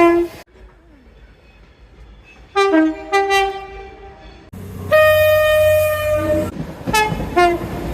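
Train horn sounding in several blasts: one ends just after the start, a two-note high-then-low blast comes about two and a half seconds in, and a longer single-note blast follows with train running noise under it. Two short toots come near the end.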